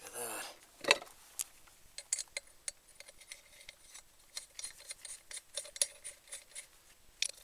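Steel lug nuts clinking and ticking against the wheel studs and the steel rim of a compact car spare wheel as they are spun on by hand. Light, irregular clinks throughout, with one sharper click about a second in.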